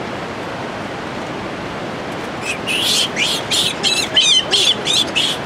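A steady rushing background noise. About halfway through, a run of short, high-pitched, squeaky animal calls starts, several a second, with a quick warbling run among them.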